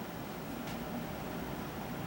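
Steady background hiss of a small room, with one faint click less than a second in.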